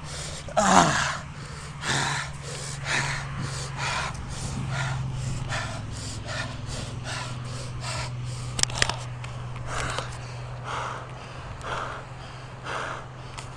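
A person panting hard, quick gasping breaths close to the microphone, out of breath after hard exertion, over a steady low hum.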